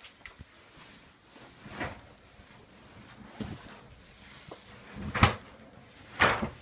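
A few short knocks and thumps, about four, spread out, the loudest about five seconds in.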